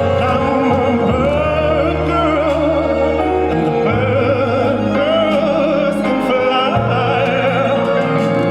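Music with an operatic-style singing voice, its held notes wavering in wide vibrato, over sustained low bass notes that change about four seconds in and again near seven seconds.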